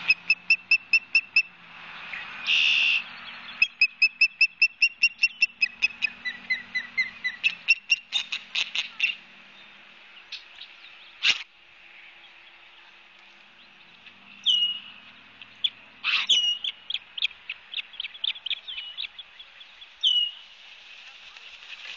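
Osprey calling: runs of sharp, high whistled chirps at about six a second, then single down-slurred chirps in the second half. A single sharp click comes near the middle.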